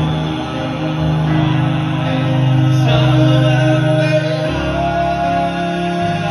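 Male gospel vocal group singing long held notes in close harmony over piano, the chord shifting about a second in and again past the middle.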